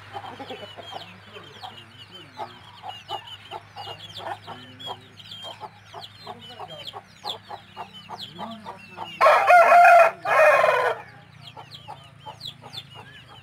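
A brood of berasa chicks peeping constantly in short, falling chirps. About nine seconds in, a rooster crows loudly in two parts lasting about two seconds.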